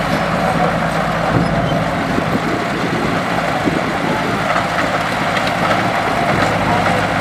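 Heavy diesel engine of construction machinery running steadily, its pitch dropping a little about six seconds in.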